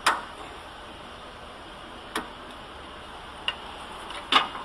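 Four sharp metal clicks from handling a conveyor roller chain as it is joined and locked with its connecting link, two of them louder, over a steady low hiss.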